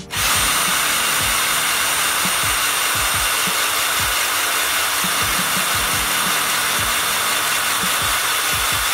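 Electric drill spinning a Wheeler Delta Series AR-15 receiver lapping tool against the upper receiver's face, the lapping compound grinding the aluminium true. A steady, even grinding hiss with a thin high motor whine, switching on suddenly just after the start and running at one level throughout.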